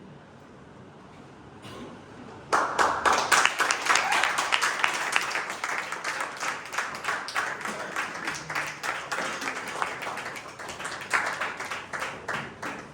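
Audience applauding: after a quiet couple of seconds, clapping breaks out suddenly about two and a half seconds in and carries on.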